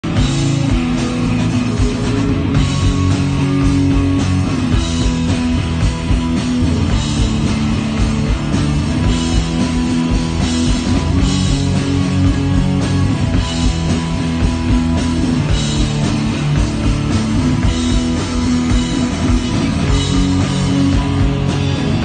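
Rock band playing live: electric bass, electric guitar and drum kit, loud and steady, with cymbal crashes recurring over sustained low bass notes.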